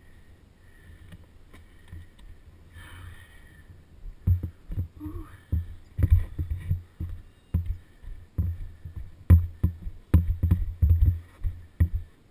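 Helmet-camera audio of a KTM 65 two-stroke dirt bike: a low steady engine hum at first, then from about four seconds in, as the bike rides the rough trail, loud irregular low thumps and rumbles of wind buffeting and bumps on the microphone.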